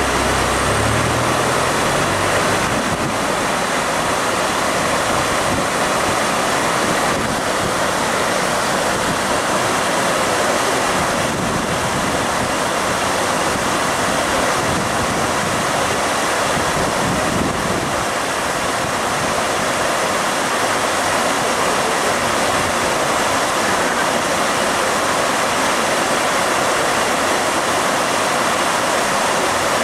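Water flowing in a small canal: a steady, even rushing that does not change.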